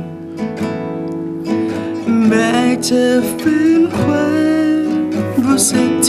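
Nylon-string classical guitar played fingerstyle, with a man singing a Thai song over it from about two seconds in.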